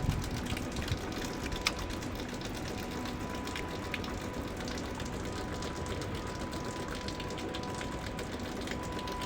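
Steady hiss of water running inside a Hobart glass washer as it fills during its heating stage, with a faint constant electrical tone and a few light clicks.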